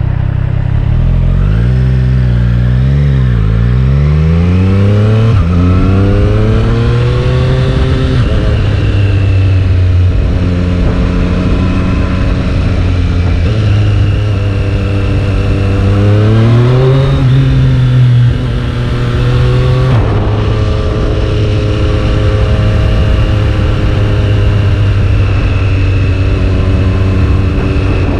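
Triumph Street Triple 765 RS inline three-cylinder engine pulling hard through several gears, its pitch climbing, dropping back and climbing again. About eighteen seconds in the revs fall off sharply, and for the rest of the stretch the engine holds a fairly steady pitch.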